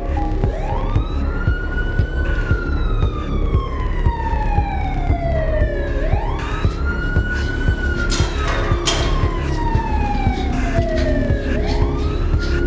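Police siren wailing: each cycle rises quickly in pitch, then falls slowly over about four seconds, starting again about every five and a half seconds, three times. Under it runs a dense low rumble with scattered thumps.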